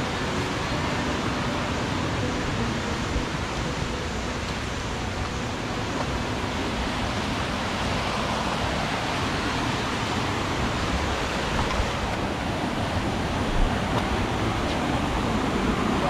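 Mountain stream rushing over rocks: a steady wash of water noise that grows a little louder in the second half, with one short knock late on.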